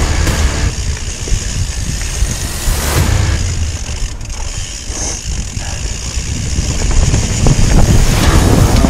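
Mountain bike riding a dirt singletrack: wind buffeting the microphone and tyre rumble, with scattered clicks and rattles from the bike over the bumpy ground.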